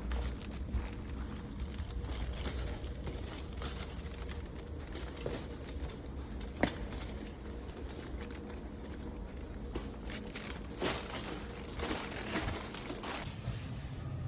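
Faint crinkling and rustling with a few light clicks, like something being handled, over a low hum.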